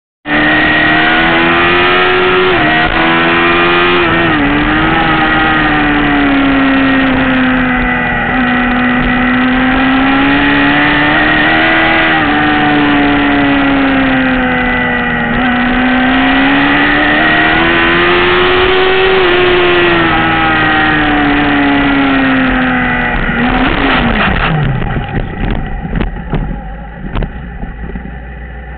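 Suzuki GSX-R sportbike's inline-four engine at high revs, rising and falling in pitch through a run of corners. About 24 seconds in the revs drop sharply as the bike goes down on a worn-out front tyre, followed by uneven scrapes and knocks as it slides into the grass, with the engine left running at idle near the end.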